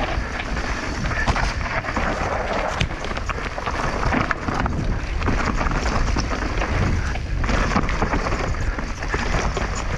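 Mountain bike running fast down a dirt trail: steady tyre and wind noise with many quick clattering rattles from the bike over rough ground, and wind buffeting the microphone.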